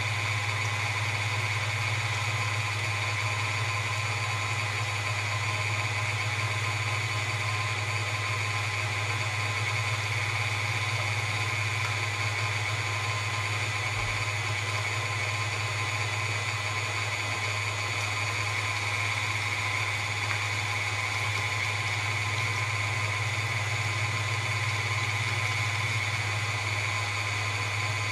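KitchenAid Artisan stand mixer running at a steady speed, driving its meat grinder attachment as chicken breast is fed through with a plunger: an even motor hum with steady higher tones above it.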